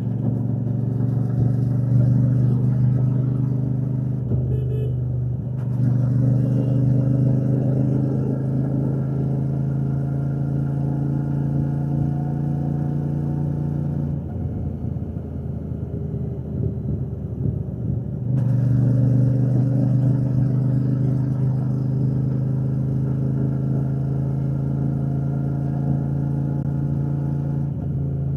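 Royal Enfield Shotgun 650's parallel-twin engine and exhaust running steadily on the move. The note dips briefly about four seconds in. Midway its steady hum drops away to a rougher, quieter rumble for about four seconds, then comes back strongly.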